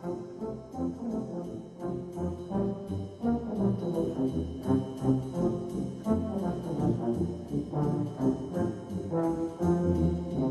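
Brass band music: several brass instruments playing a tune in harmony.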